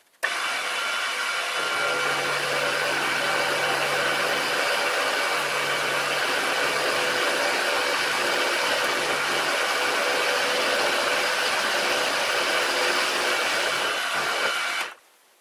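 Bernardo BF 30 G milling machine running and cutting aluminium with an end mill, a steady whining machining noise taking a 2 mm cut. It starts suddenly and cuts off near the end.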